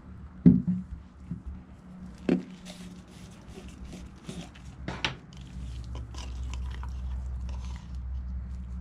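Handling noises while making a sandwich: a sharp knock about half a second in, two more knocks a couple of seconds apart, then a run of small clicks and scrapes over a low steady hum.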